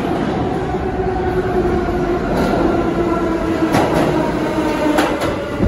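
R46 subway train pulling into the station: a loud steady rumble with a whine, and a few sharp clacks of the wheels over rail joints in the second half.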